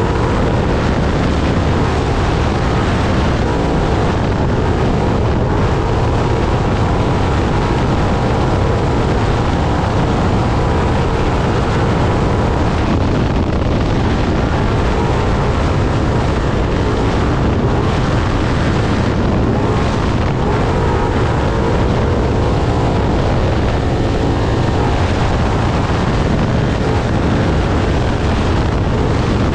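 Off-road trophy truck at racing speed, heard from on board: a loud, steady engine note under a dense rush of wind and rough-terrain noise.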